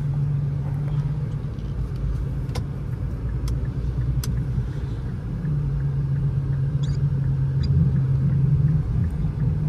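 Cabin sound of an Infiniti Q50's 3.7-litre V6 car driving on snowy roads: a steady low droning hum over road rumble, which swells and fades. The driver suspects the drone comes from the tyres. A few faint clicks are heard.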